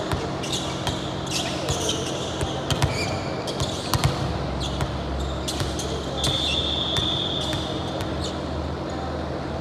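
Indoor volleyball game on a hard court: many short sneaker squeaks and the thud of ball hits over the steady hum of a large gym, with one longer high squeal about six seconds in.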